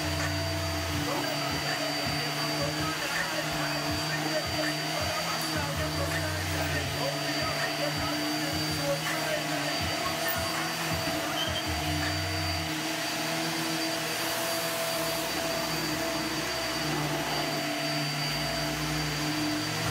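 Bagless upright vacuum cleaner running steadily with a constant motor whine while it is pushed over carpet.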